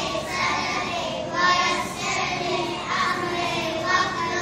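A group of young children singing together in unison, in phrases a second or so long.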